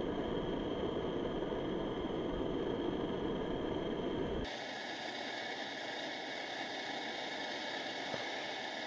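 Steady wind noise rushing over the microphone, which cuts off suddenly about four and a half seconds in, leaving a quieter, even hiss.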